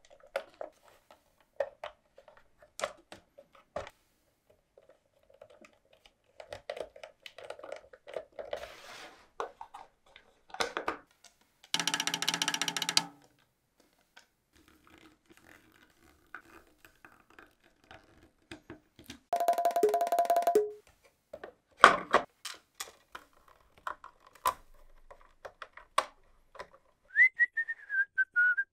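Scattered clicks and snaps of plastic model-kit parts being handled and pressed together, broken twice by a short buzz of about a second, and a short falling whistle-like tone near the end.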